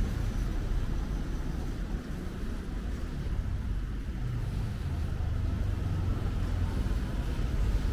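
Urban street ambience: a steady low rumble of road traffic, with no single event standing out.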